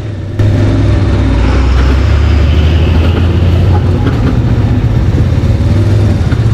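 Steady low drone of engines running at low road speed: a motorcycle riding slowly with a large truck close alongside. It comes in sharply about half a second in.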